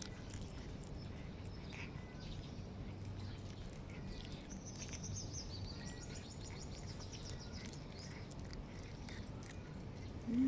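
Outdoor ambience with a steady low hum, and a bird giving a rapid, high trill for about three seconds in the middle. A brief low sound comes near the end.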